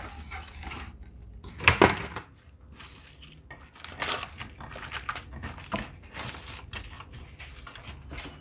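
Plastic cling wrap crinkling and crackling as it is pulled from its box, cut with the slide cutter and pressed over a glass baking dish, with a sharper crackle a little under two seconds in.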